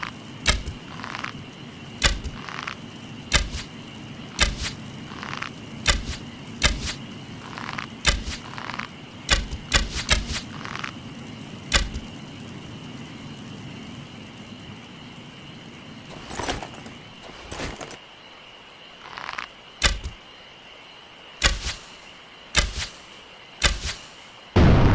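A series of bow-and-arrow sound effects: sharp arrow shots and hits, about one a second, some with a short whoosh. A faint steady high tone sits behind them for the first two-thirds, then the hits come further apart.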